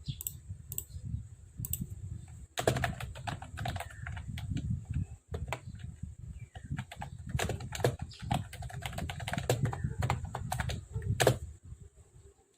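Typing on a Mofii Sweet S keyboard: a few scattered keystrokes, then steady, irregular typing from about two and a half seconds in, ending with one sharper key press shortly before it stops near the end.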